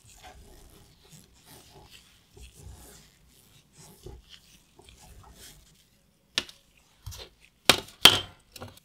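Faint scraping creaks of a hand tap cutting threads into the hand drill's metal frame. After a short pause come several sharp knocks of steel drill parts being set down in a plastic tray on a wooden bench, the loudest two close together near the end.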